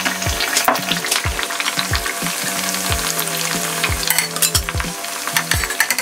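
Thattai vadas (flat rice-flour and chana dal fritters) deep-frying in hot oil in a stainless steel frying pan: a dense, steady crackling sizzle, stirred and turned in the oil.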